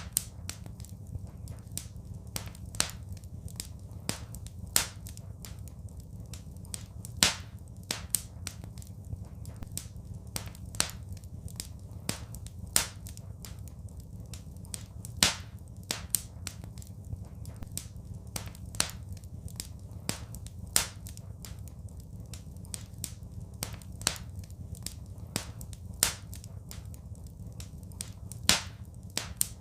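Wood fire burning in a fireplace: frequent sharp crackles and pops at irregular intervals, a few louder ones standing out, over a steady low rumble.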